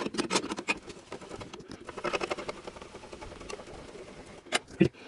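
A car jack being worked with its metal handle to lift the rear wheel: irregular clicks, rattles and scrapes, with two sharp knocks near the end.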